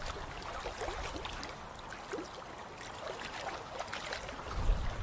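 Running water trickling and babbling, with a low rumble near the end.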